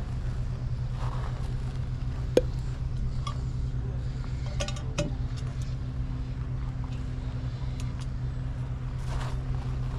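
Steady low hum of a running vehicle, with one sharp click about two and a half seconds in and a few light clinks around the middle.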